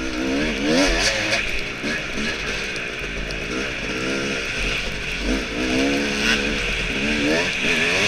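Yamaha dirt bike engine under hard riding, its revs climbing and dropping back again and again as the throttle is worked.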